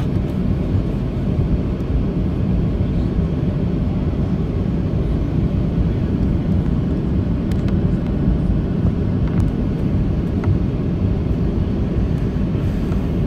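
Cabin noise inside a Boeing 737-700 taxiing: its CFM56-7 turbofan engines at low taxi power give a steady low rumble, with no build-up of thrust.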